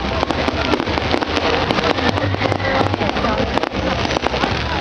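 Fireworks crackling and popping in many quick sharp cracks over a steady background din.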